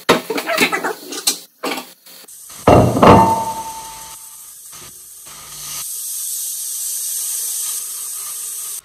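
Knife chopping on a wooden board, a run of sharp taps, then a loud knock with a brief ringing about three seconds in. Under it, a steady sizzling hiss of steak frying in a pan, stronger in the second half.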